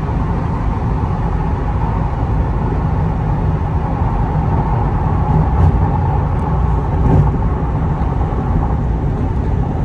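Cabin noise inside a Chevrolet Corvette C8 at high freeway speed while easing off: a steady low drone of the V8 mixed with road and wind noise.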